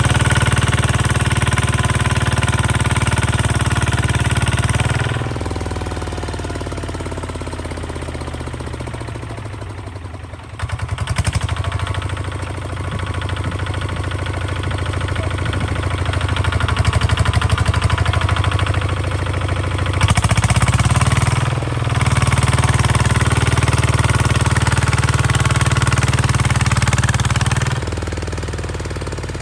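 Single-cylinder diesel engine of a two-wheel walking tractor chugging with a fast, even knock as it hauls a trailer loaded with soil. It eases off about five seconds in, dips briefly near the middle, then builds back up and runs loudest through most of the second half before easing again near the end.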